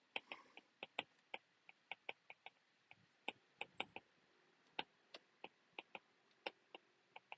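Irregular light clicks, a few a second, over near silence.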